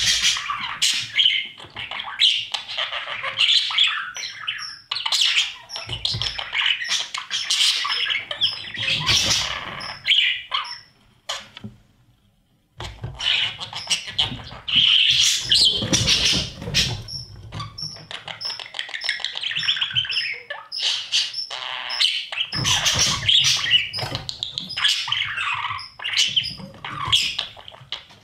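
Budgerigars chirping and chattering rapidly inside a nest box, with a short pause about halfway through.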